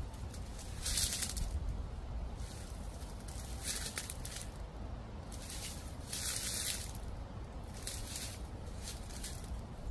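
Footsteps crunching through dry fallen leaves, a slow step every second or two, over a steady low rumble of autumn wind on the microphone.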